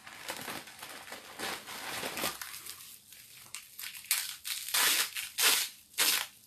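Plastic packaging and bubble wrap crinkling as they are unwrapped by hand, with several louder bursts of crinkling in the second half.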